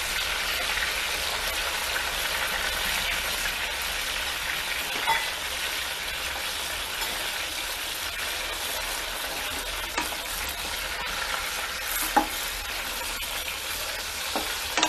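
Hot oil sizzling steadily as a whole tomato, tomatillos and onion fry in a small enamelware pan, with a few light clicks near the end as a spoon turns the tomato.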